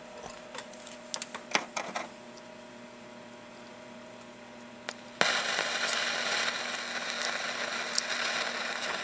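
A few light clicks of test leads being handled, then about five seconds in a steady static hiss with a faint hum comes on suddenly from the Admiral 5RP4 tube set's speaker, which the owner takes for an AM station leaking through although the set is switched to record player.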